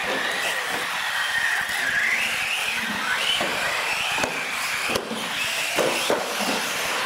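Radio-controlled UTV trucks racing, their motors whining and rising and falling in pitch with the throttle over tyre hiss. Several sharp knocks come in the second half.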